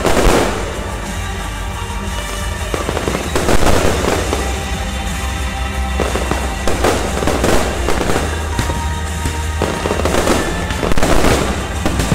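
Aerial fireworks going off in a string of bursts a few seconds apart, with crackling between them.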